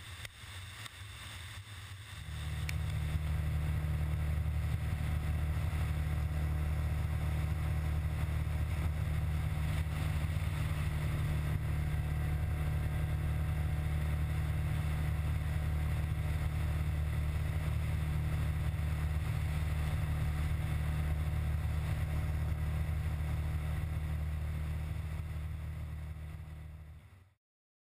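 Honda XR650L's single-cylinder four-stroke engine and road wind, heard as a steady low drone of the bike cruising at road speed. It comes in abruptly about two seconds in and fades out shortly before the end.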